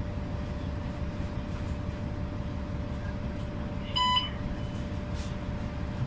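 Steady low drone of a New Flyer XDE60 diesel-electric hybrid articulated bus heard inside the passenger cabin, with a thin steady hum above it. About four seconds in, one short electronic beep.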